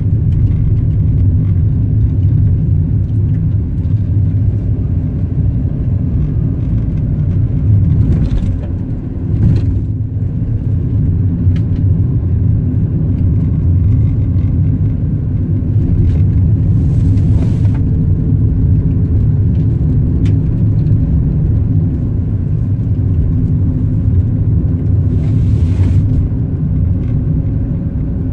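Car driving along, a steady low rumble of engine and tyre noise. Two short hissing noises come about 17 and 25 seconds in.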